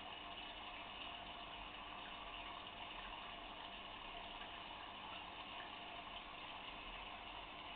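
Steady bubbling and trickling of water in a fish tank, an even running sound with no distinct events.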